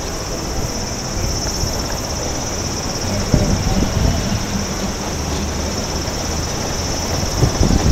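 Steady shrill of cicadas holding one high, unbroken drone, over a low rumble of wind on the microphone, with a few soft knocks.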